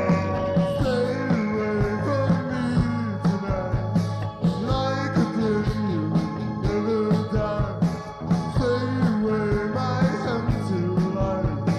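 Live rock band playing: drums, bass guitar, electric guitar and saxophone, with a bending melodic lead line over a steady beat.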